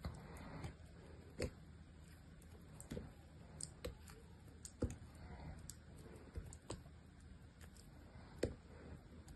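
Small knife cutting into a block of dry, hard soap: irregular crisp cracks and snaps as the blade bites and chunks break off, a few strong ones a second or two apart with smaller clicks between.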